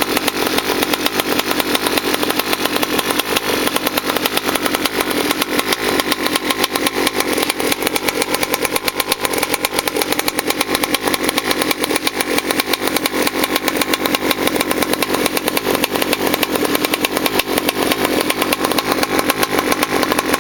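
Goped GSR60 two-stroke engine with a tuned expansion pipe running steadily at an even speed, a rapid stream of firing pulses. It is the engine's first run on the completed scooter.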